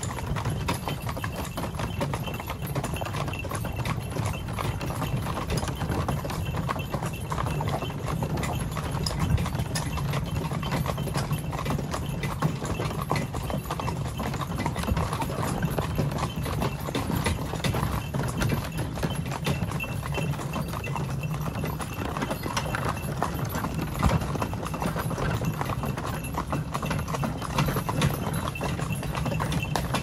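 A pair of cart horses' hooves clip-clopping on a dirt track as they pull a horse-drawn cart, with a steady low rumble underneath.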